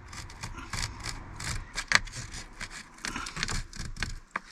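Plastic tyre lever being run along the runner of a motorhome fly-screen blind, pushing the mesh back into its channel: irregular scraping and clicking.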